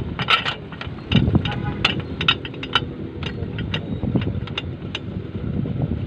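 Engine of a homemade backhoe running steadily, with irregular clicks and rattles on top.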